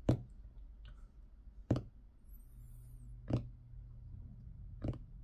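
Fingertips tapping on a wooden desktop, one short tap about every second and a half, four in all, over a faint steady low hum.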